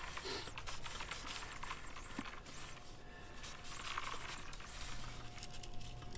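Faint, scattered clicks and light knocks from handling a metal telescoping antenna mast, over a low outdoor hiss.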